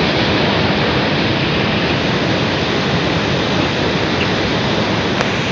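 Steady, even rush of sea surf against a breakwater.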